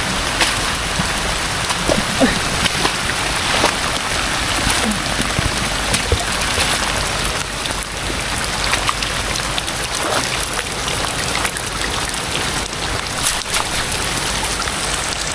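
Heavy rain falling steadily, with many separate drops hitting close by.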